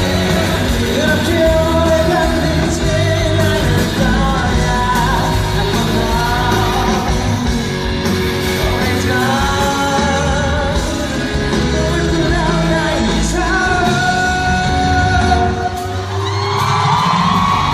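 Live band music with a male singer's voice and shouts from the crowd. The band and voice play continuously, with a short dip about sixteen seconds in followed by a rising slide.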